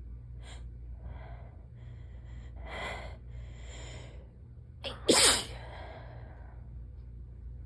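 A person sneezing while sick with a cold-like illness: a few soft, breathy catching inhales build up, then one strong sneeze about five seconds in.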